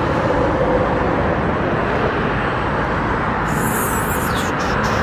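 Steady outdoor noise: a low rumble and hiss with no single source standing out. Near the end comes a short high hiss with a few crackles.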